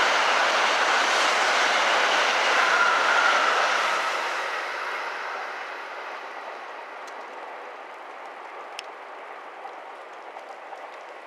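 Tokaido Shinkansen bullet train passing at speed: a loud steady rush of wheel and air noise that fades away from about four seconds in as the train draws off into the distance, leaving a faint hiss with a few small clicks.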